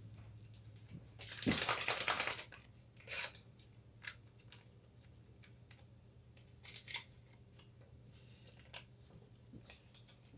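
Handling noises close to the microphone: a loud burst of rustling and crinkling about a second and a half in, then shorter rustles and a few sharp clicks and knocks.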